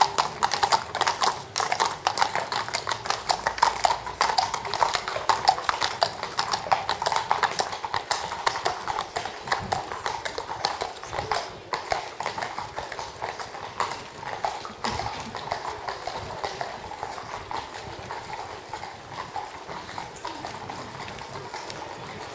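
Two horses walking on a tarmac road, their hooves clip-clopping in a steady stream of clicks that grows fainter in the second half.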